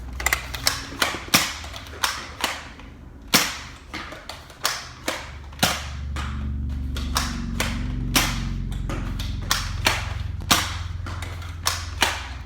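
Nerf blaster firing dart after dart: sharp cracks about two a second at an uneven pace. A low steady hum runs under the shots for a few seconds midway.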